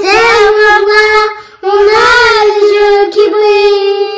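A child singing without accompaniment, holding long sustained notes in two phrases, the second held for over two seconds.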